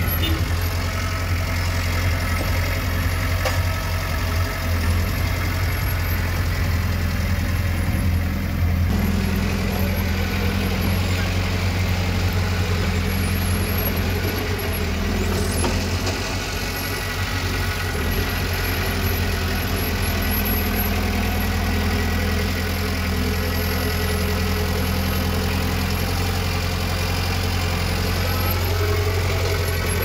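Diesel engine of a Komatsu D20 bulldozer running steadily, with slight changes in its note about nine and sixteen seconds in.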